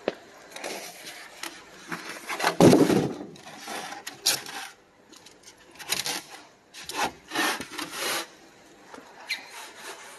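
EPS foam (styrofoam) surfaces rubbing and scraping against each other in irregular strokes as cut foam pieces are handled, loudest about two and a half seconds in.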